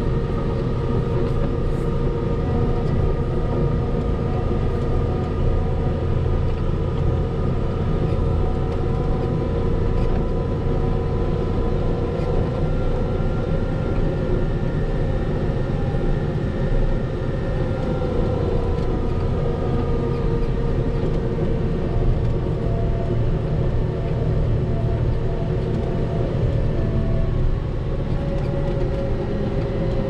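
Volvo L60H wheel loader's diesel engine running steadily under load as it plows through snow drifts. A deep drone carries a steady whine over it that drifts slightly in pitch.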